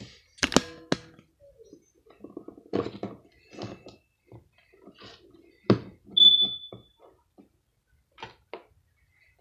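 Hands setting plastic toy figures and plush stuffed animals down on a table: scattered knocks, clicks and rustling, with a few sharper knocks. About six seconds in comes a brief high-pitched tone, the loudest sound.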